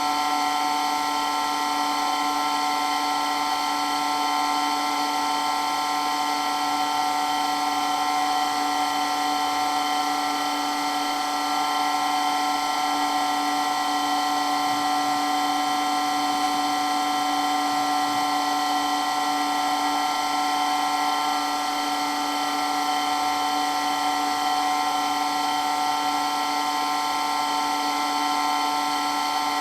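Water pump running steadily with a constant whine made of several steady tones, unchanging throughout.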